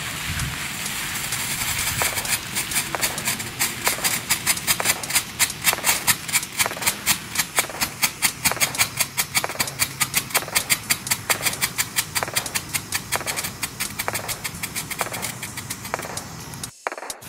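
Fire Hawk Fireworks Flashing Strobe fountain burning with a steady hiss; from about two seconds in it pops in a fast, even rhythm of about four sharp pulses a second, one with each strobe flash, and the pulsing stops shortly before the end.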